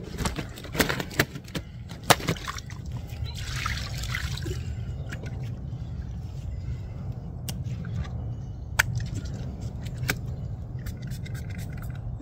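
Handling clicks and knocks as an angler tends a landed carp, with a short hissing spray of liquid about three seconds in, over a steady low rumble.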